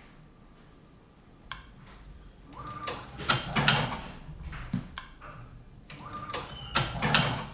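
Tajima SAI embroidery machine running its manual thread-trim cycle twice in a row: each cycle is a light click, a short steady tone, then a quick run of sharp mechanical clicks and clatter as the trimmer cuts the thread.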